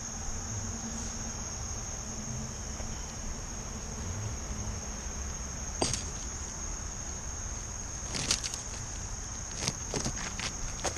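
Steady high-pitched drone of insects, like crickets, with a few sharp knocks in the second half: one about six seconds in, then several more close together near the end.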